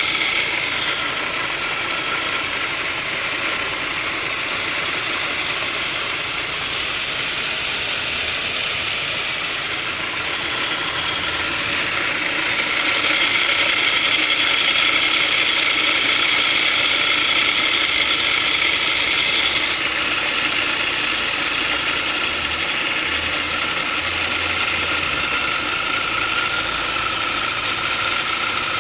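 Engine running steadily, making an unexplained noise that the owner is trying to diagnose. The noise grows louder and higher-pitched for several seconds midway through, then settles back.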